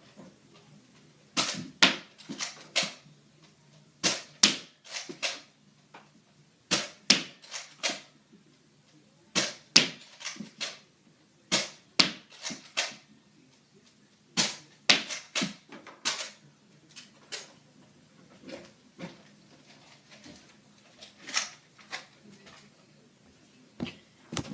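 Nerf Strongarm dart blaster being primed and fired six times in a row. Each shot is a quick cluster of sharp plastic clicks and snaps, as the slide is pulled back and pushed forward and the blaster fires. Fainter, scattered clicks follow through the last part.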